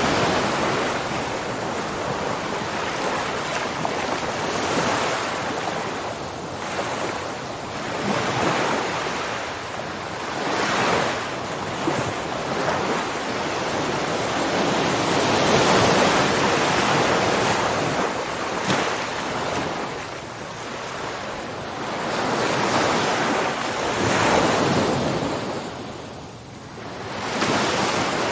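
Ocean waves breaking and washing ashore, a steady hiss of surf that swells and recedes every few seconds, with a deeper lull near the end.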